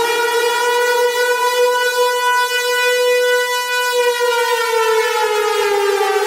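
Civil defence siren wailing: a single loud tone held at a steady pitch, then starting to fall in pitch about four seconds in.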